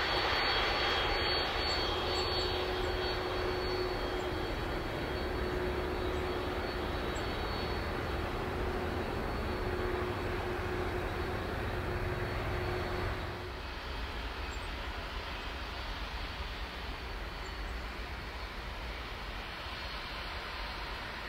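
Boeing 767-300's jet engines running as the airliner rolls along the runway after landing with one engine shut down: a steady rush with a faint whine. About 13 seconds in it cuts to a quieter, steady rumble.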